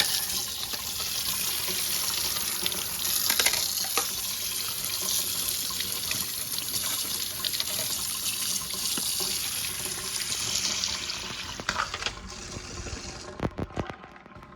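Kitchen tap running into the sink as toaster-oven crumb trays are rinsed under it, with a couple of knocks along the way. The water dies away near the end amid a few clattering knocks.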